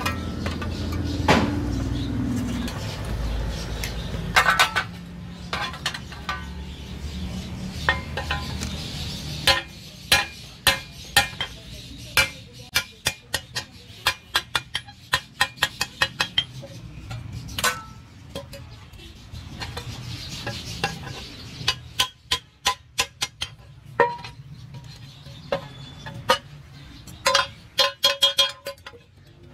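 A low steady rumble over the first several seconds as the blade heats in the charcoal forge. Then a hand hammer strikes a steel hand plough blade on an anvil again and again, sharp metallic blows with a short ring, often in quick runs of taps, as the blade is straightened.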